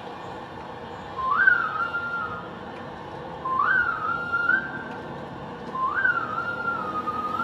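Intro of the next song playing over the venue's sound system: a whistle-like melody phrase, a quick rise then a held note, repeated three times at even spacing over a steady backing.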